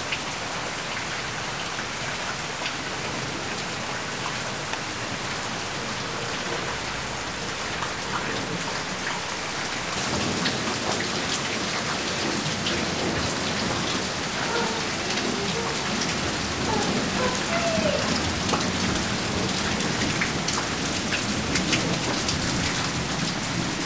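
Steady rain falling on a wooden deck and yard, growing a little louder about ten seconds in.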